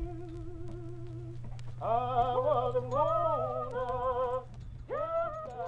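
Music with singing: long held notes with vibrato, several voices joining in the middle, over a steady low note.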